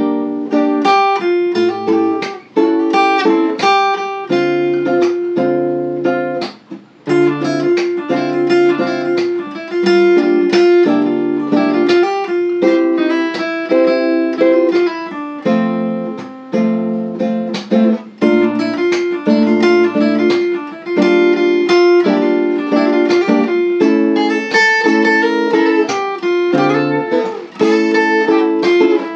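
Instrumental acoustic guitar music: plucked and strummed notes played continuously, with a couple of brief pauses.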